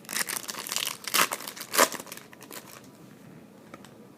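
A trading card pack wrapper being torn open and crinkled, a quick run of crackling rips that is loudest about a second and a half in and stops after about three seconds.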